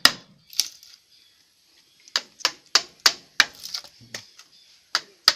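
Hammer blows on wood, sharp separate knocks. After a pause of about a second there is a quick run of five strikes, about three a second, then a few more near the end.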